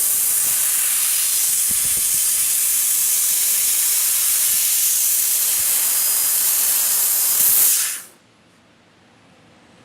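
CNC laser cutting machine hissing steadily while it cuts, the sound of assist gas blowing through the cutting head, then cutting off suddenly about eight seconds in.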